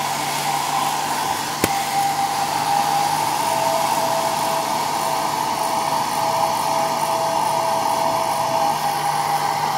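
Handheld hair dryer running steadily on low speed, blowing hot air. There is a single sharp click about a second and a half in.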